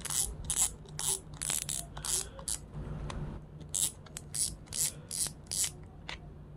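Shimano Vanford 3000 spinning reel's front drag knob clicking as it is turned, a sharp click roughly every half second with a short pause midway, typical of backing the drag off to take the spool off.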